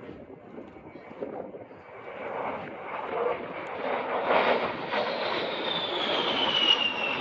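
Fairchild Republic A-10 Thunderbolt II jet flying past, its twin TF34 turbofans' rushing noise growing louder. A high whine falls steadily in pitch over the last couple of seconds as it goes by.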